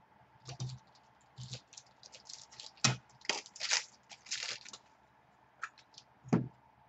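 Hands handling trading-card packaging and cards: a run of crinkly rustles and clicks, with two sharp taps, one about three seconds in and one near the end.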